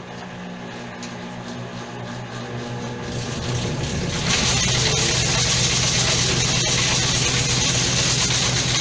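Whirlpool washing machine in its spin cycle: a steady motor hum, then from about four seconds in a loud noise rises and holds as the drum spins up. The noise is not from the transmission bearings but from a chain that has worked its way into the tub through one of its holes.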